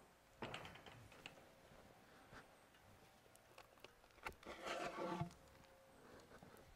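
Faint handling sounds of a wooden fence panel and 4x4 fence post being moved: a few light knocks, and a short squeaky scrape as the post is pulled up out of its PVC ground sleeve.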